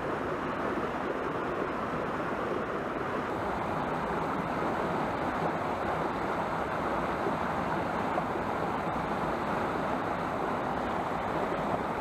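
Mountain stream rushing over rocks and down a small cascade, a steady rush of water.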